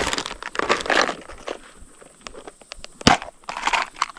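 Rustling, crinkling handling noise close to the microphone, made of short scrapes and clicks, with one sharp knock about three seconds in.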